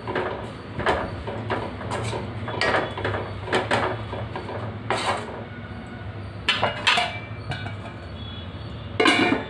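Spatula stirring amaranth leaves and onions in a nonstick wok: irregular knocks and scrapes of the spatula against the pan over a steady low hum, with a louder metallic clatter near the end.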